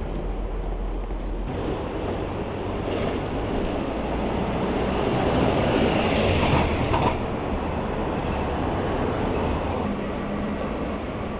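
Busy city-street traffic noise, with a double-decker bus running close by. The noise swells as the bus passes, with a short sharp hiss about six seconds in.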